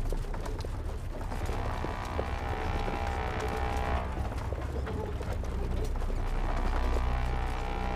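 Wooden horse-drawn carriages creaking and rattling as they roll, with a dense run of small clicks and creaks.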